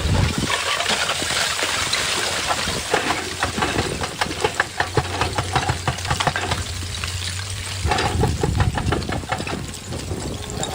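Excavator's diesel engine running with a steady low hum, under rapid crackling and clicking that thickens about three seconds in and again near the end.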